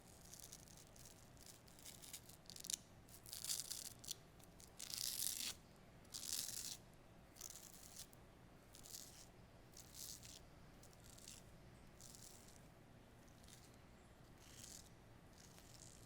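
A manual razor scraping across skin in a run of short strokes, about one a second. The strokes are longer and louder in the first half and lighter and shorter toward the end.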